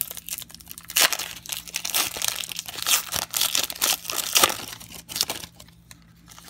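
Foil wrapper of a football trading card pack being torn open and crinkled by hand: a dense run of crackling and tearing that dies down about five and a half seconds in.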